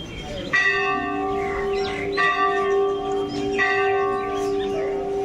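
Hindu temple bell rung three times, about a second and a half apart, each stroke ringing on over the one before.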